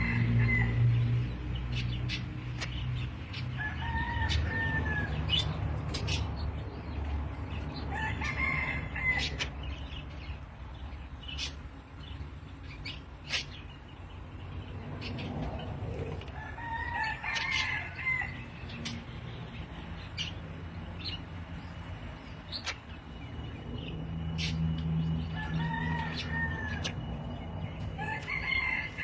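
Recorded call of the bird known locally as ngambok, played as a lure for bird trapping: a short arching call repeated about six times, several seconds apart, over a low hum and scattered clicks.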